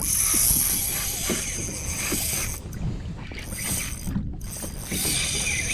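Spinning reel being wound in, a mechanical whir that stops briefly twice, over a steady rumble of wind and water against the kayak.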